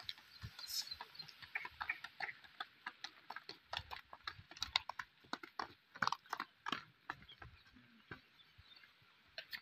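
Hooves of a white draught bull and a handler's footsteps on a dirt track: quiet, irregular clicks and scuffs.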